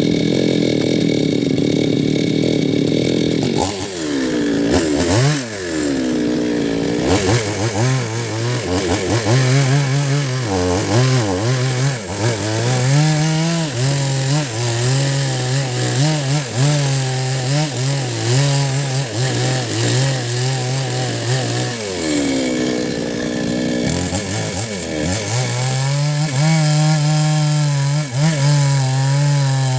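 Two-stroke chainsaw cutting into a large rain tree root stump at full throttle, the engine note dropping and wavering as the chain bites into the wood. Twice the pitch swings up and down as the cut eases and the saw is worked back in, about four seconds in and again about twenty-two seconds in.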